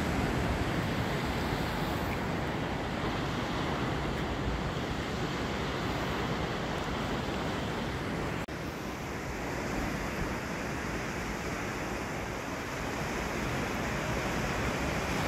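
Steady wash of ocean surf breaking on the shore, with wind rumbling on the microphone. The sound drops out for an instant about eight and a half seconds in.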